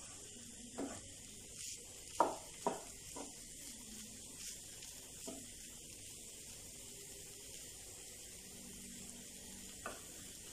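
Wooden spatula stirring and scraping a thick, dry curry mixture around a nonstick pan, with a few sharp scrapes and taps, most of them in the first half, over a faint steady sizzle as the last moisture cooks off.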